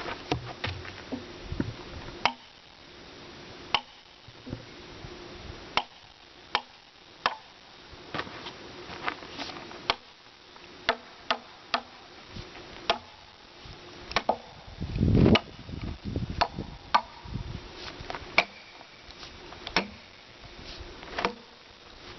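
A twisted wedge being driven into the rip cut of a timber post billet to split it apart: a series of sharp, irregularly spaced strikes, with a heavier low thud about fifteen seconds in.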